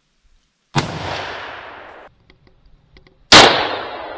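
6.5 Creedmoor scoped rifle firing: a shot about three-quarters of a second in, its echo cut off short, a few light clicks, then a louder shot a little past three seconds in that echoes away. The two bangs are most likely the same shot heard from two cameras.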